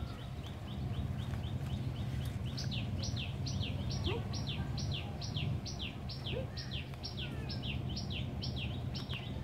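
A bird calling: a quick run of short high chirps, about five a second, that turns about two and a half seconds in into a long series of down-slurred whistles, about two and a half a second. A steady low hum runs underneath.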